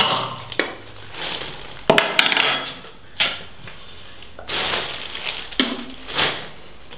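A plastic shopping bag crinkling and rustling as it is held up to the mouth, with gagging into it and a few sharp clicks, in separate bursts.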